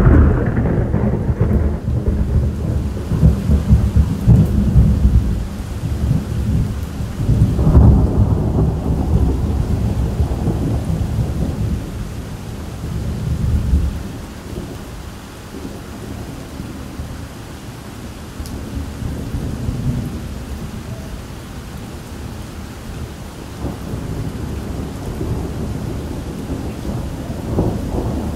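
Thunder rolling over steady rain: a long loud peal at the start, a second loud peal about eight seconds in that rumbles on and fades by about fourteen seconds, then steady rain with fainter low rumbles.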